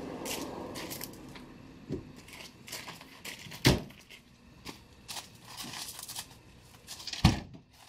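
Footsteps crunching on gravel and things being handled in a hatchback's boot, with a thump about halfway through. Near the end the tailgate is slammed shut with a sharp bang.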